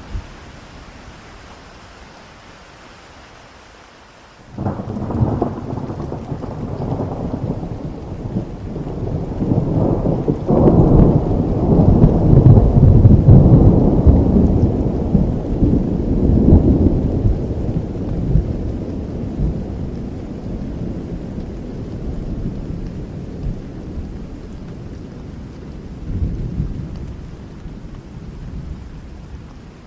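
Steady rain falling, then about four and a half seconds in a thunderclap breaks into a long rolling rumble of thunder that swells, peaks midway and slowly fades under the rain.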